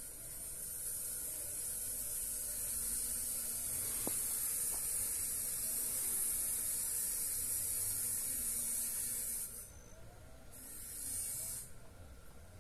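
High-pitched, steady insect buzz from the surrounding vegetation. It cuts off sharply about nine and a half seconds in, then returns briefly about a second later.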